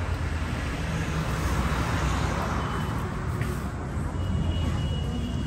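Road traffic running under a steady low rumble, with one vehicle's noise swelling and fading as it passes about two seconds in.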